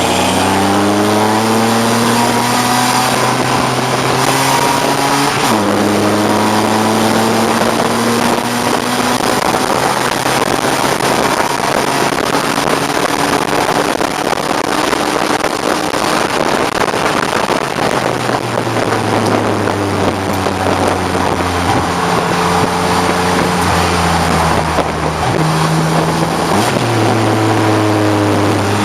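A BMW 535i's 3.4-litre straight-six race engine pulling hard under load, rising in pitch, with an upshift about five seconds in before it climbs again. Through the middle there is a long stretch of loud rushing noise at speed. Later the engine pitch steps down, and a sharp rise near the end marks a downshift.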